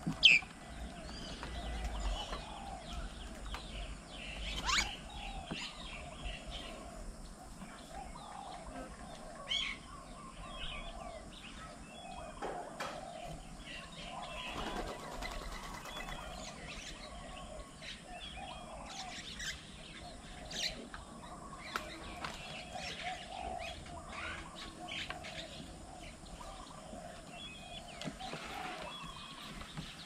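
Many small birds chirping and calling over one another at a feeding table, with wings flapping now and then and a few sharp, louder calls standing out, the loudest right at the start.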